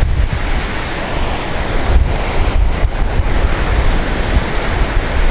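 Surf breaking and washing on an open ocean beach, with wind buffeting the microphone in a heavy low rumble.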